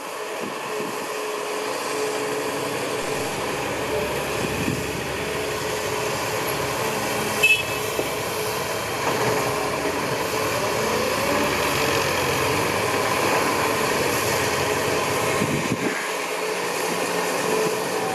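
Diesel engine of heavy earthmoving machinery running steadily, its pitch briefly rising and falling a little past the middle, with one short sharp sound about seven seconds in.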